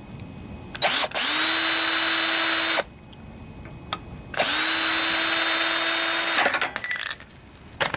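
Cordless drill with a screwdriver bit, run twice for about two seconds each, backing out the screws that hold the intake plate on a Tecumseh H30 engine's carburetor. Each run winds up quickly to a steady whine and cuts off abruptly.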